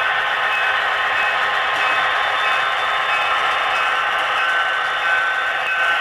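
HO scale model SD35 diesel locomotive pulling a coal train along the layout track: a steady, thin mechanical running sound with a short high tone repeating about twice a second.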